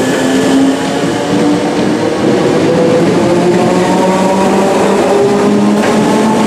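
Merseyrail Class 507 electric multiple unit pulling out of the station: a steady, loud whine from its traction motors, with several tones drifting in pitch, over the noise of its wheels on the rails.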